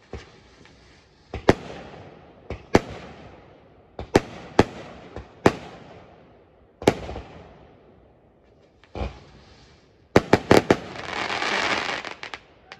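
Fireworks going off: a series of sharp bangs, each echoing away, then a quick cluster of cracks and a spell of crackling near the end.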